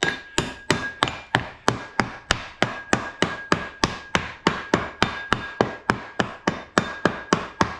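Rapid, even tapping, about four sharp knocks a second, of a rapping tool against the pattern in a green-sand mold: rapping the pattern loose in the sand before it is lifted out.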